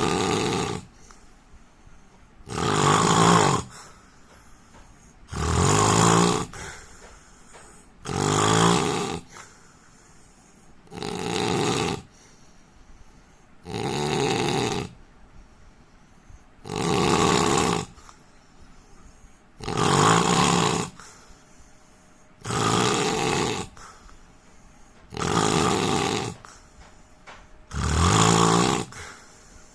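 A man snoring in his sleep: loud snores about every three seconds, each lasting about a second, with quiet in-between breaths.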